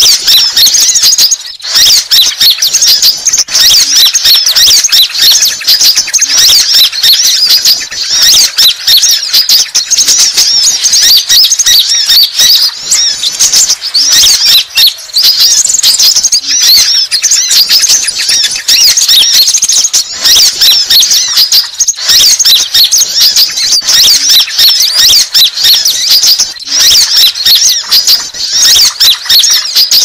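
Sunbirds twittering in a rapid, unbroken stream of high-pitched chirps: a lure-call recording of konin sunbirds used to draw wild birds in.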